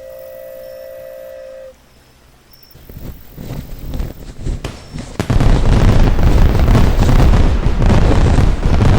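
Fireworks sound effect. A steady tone lasts under two seconds, then scattered pops and cracks build up from about three seconds in. From about five seconds in they become a loud, continuous barrage of fireworks bursts and crackle.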